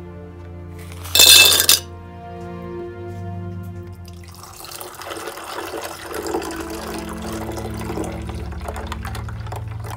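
A drink poured in a thin stream over ice into a glass mug: a steady splashing trickle starts about four seconds in and runs on as the glass fills. About a second in there is a brief loud clatter. Soft background music plays throughout.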